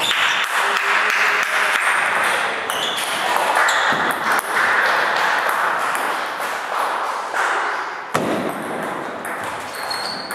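Table tennis ball clicking against bats and the table during a rally: a series of sharp, irregular ticks over a steady background hiss.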